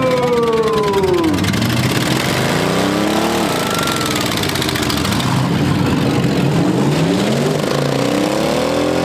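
Several demolition derby pickup trucks' engines revving up and dropping back as the trucks accelerate and back up to ram each other. A long whining tone slides down in pitch over the first second and a half.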